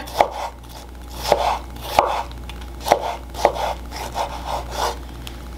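Chef's knife slicing peeled tomatoes on a wooden cutting board, the blade knocking on the wood in irregular strokes about once a second.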